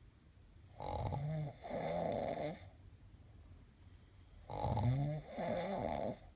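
Snoring: two long, loud snoring breaths about three and a half seconds apart, each in two parts with a short break between.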